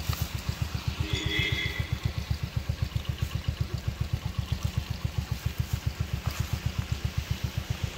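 An engine running steadily, a fast, even low throb with no change in speed.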